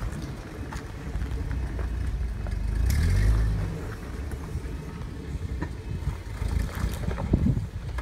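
Jeep engine running at low crawling speed on a rocky trail, swelling louder about three seconds in, with scattered knocks and clunks of tyres over rock.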